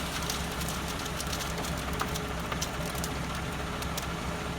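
Concrete mixer truck's engine running steadily under a constant gritty rushing noise, with scattered small clicks and knocks.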